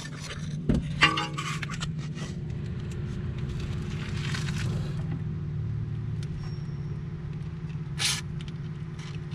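Aerosol can of penetrating oil sprayed onto a seized brake caliper bolt: a hiss of about a second around four seconds in and a short one near the end, over a steady low hum. A few sharp knocks about a second in.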